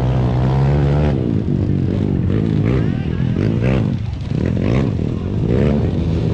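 Motorcycle engine running at a steady pitch, then revving up and down from about a second in.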